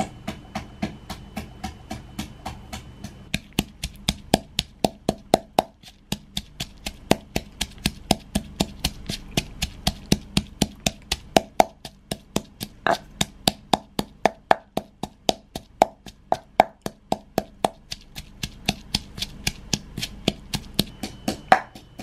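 Wooden pestle pounding red chilies and garlic in a clay mortar: a steady run of knocks, about three a second.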